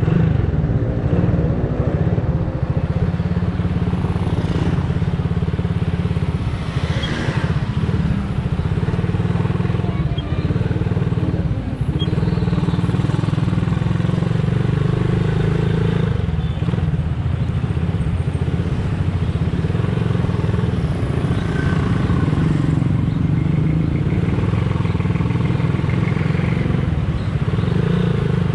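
Motorcycle engine running under way, heard from the rider's seat, its pitch rising in the first couple of seconds as it speeds up, then running steadily through traffic.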